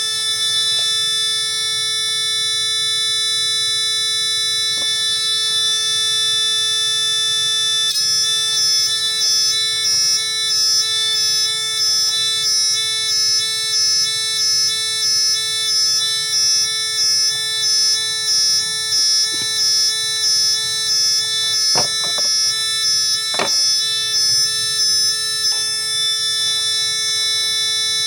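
Electronic buzzer sound-effect circuit sounding a steady shrill tone, then switching to another mode about eight seconds in, where it pulses in a regular warble of a little over one beat a second. A couple of faint clicks come near the end.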